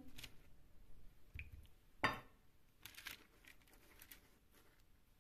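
Soft wet dabbing and squishing of a silicone pastry brush spreading liquid sauce over rolled pastry on a baking tray, with one sharper, louder tap about two seconds in.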